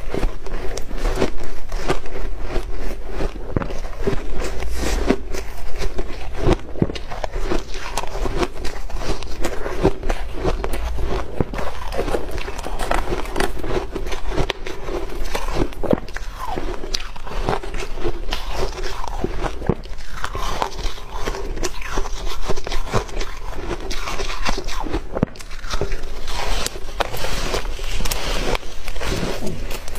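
Crunching and chewing of a refrozen shaved-ice cake: bite after bite of crisp ice crackling in the mouth, with no pause.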